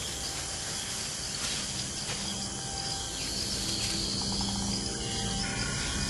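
Jungle ambience of insects chirping steadily, with a few faint low held tones beneath.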